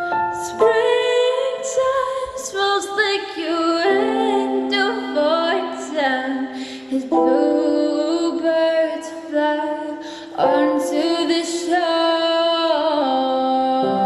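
Song playing with layered female vocals holding and sliding between sustained notes, and no clear words.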